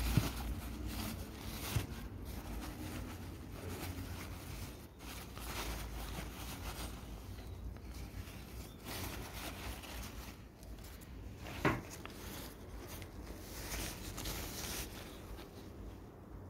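Crumpled paper packing rustling and crinkling in a cardboard box as a hand unwraps a succulent cutting from it, with a few sharp clicks from handling.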